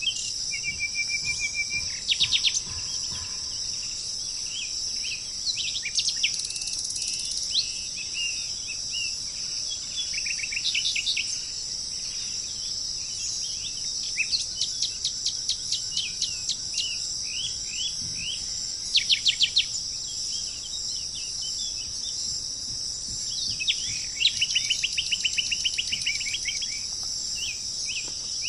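Birds chirping in repeated runs of quick, short notes over a steady high-pitched drone of insects such as crickets.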